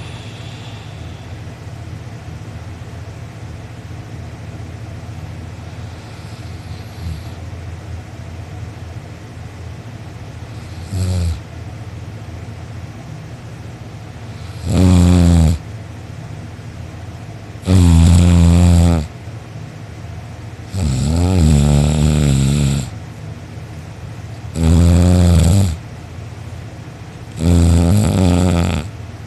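A sleeping person snoring loudly: one short, weak snore, then after a pause five loud snores about every three seconds, each lasting one to two seconds and wavering in pitch.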